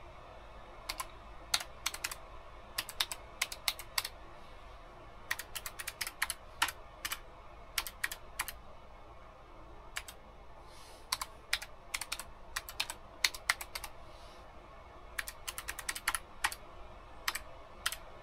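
Typing on a computer keyboard: irregular runs of quick keystrokes, broken by short pauses.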